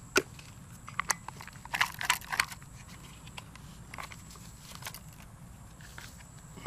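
Scattered sharp clicks with a short rattling cluster about two seconds in: fishing tackle and corn bait being handled while baiting up.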